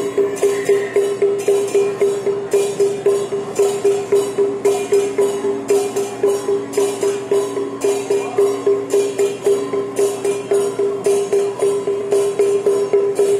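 Music with a quick, even beat of about three pulses a second over a held mid-pitched note.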